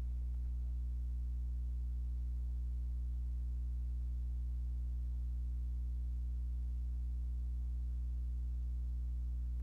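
A steady low electrical hum with a stack of overtones, unchanging throughout, typical of mains hum picked up in the recording chain.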